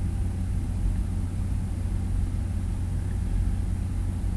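Steady low hum with a faint hiss over it, unchanging throughout.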